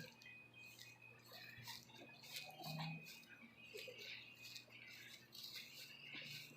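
Faint, scattered crackling and rustling of damp topsoil being worked and packed by hand.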